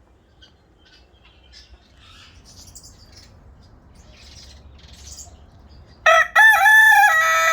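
Rooster crowing loudly about six seconds in: a short opening note, a brief break, then a long held note. Before it, faint scattered bird chirps.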